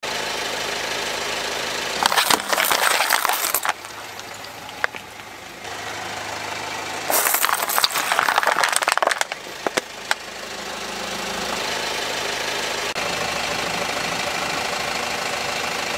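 Car tyre rolling over plastic soda bottles packed with water beads, crushing them in two loud bursts of crackling and splattering, one about two seconds in and one about seven seconds in. The car's engine runs steadily underneath.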